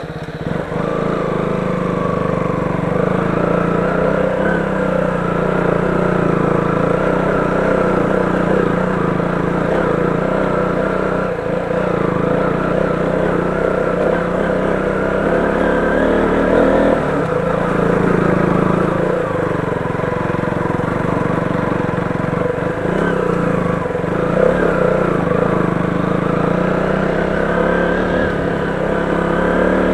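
KTM 200 Duke's single-cylinder four-stroke engine running while the motorcycle is ridden. Its pitch rises and falls as the throttle opens and closes.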